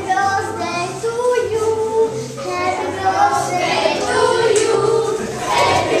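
Children singing a song over backing music with a steady, repeating bass line.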